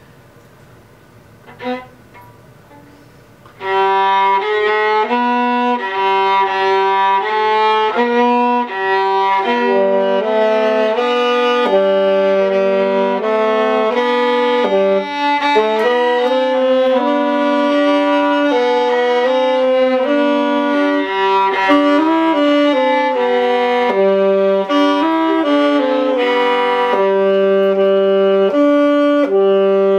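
Viola bowing a melody, beginning about four seconds in after a couple of faint knocks.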